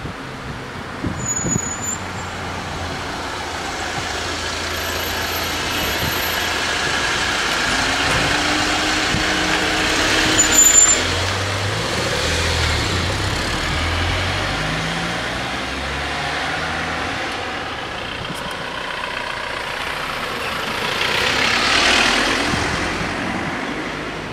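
A road vehicle's engine running close by, loudest about halfway through, its pitch stepping up and down, over steady wind noise. Near the end there is a brief rush of noise.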